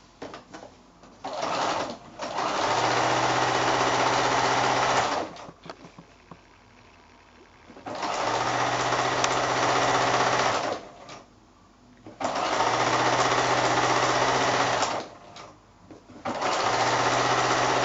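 Electric sewing machine stitching a seam through patchwork fabric. It runs in short bursts of about three seconds, four times, with a brief blip first and short pauses between runs as the fabric is guided along.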